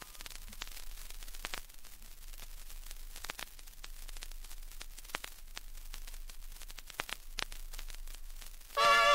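Vinyl record surface noise in the silent groove between tracks: a faint hiss with scattered clicks and pops over a steady low mains hum.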